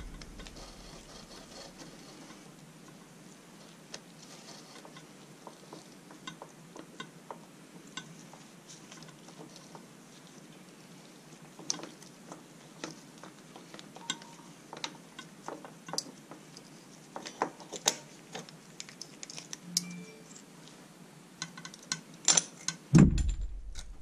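Scattered small metallic clicks and clinks of a hex key and a motorcycle rear brake caliper's pad pins and pads being worked loose by hand. The clicks are sparse at first and come more often from about halfway, with a louder knock near the end.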